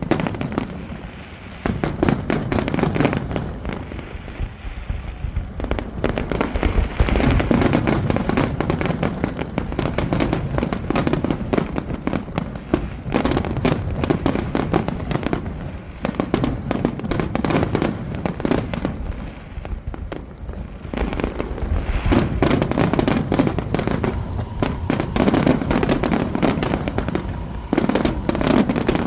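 Fireworks display: a dense, almost unbroken barrage of sharp bangs and crackling over low booms, easing briefly near the start and again about twenty seconds in.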